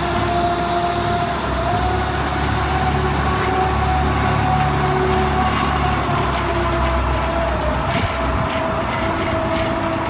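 HY-400 self-loading concrete mixer's engine running steadily, with a steady whine over it, as the machine swings its mixing drum round.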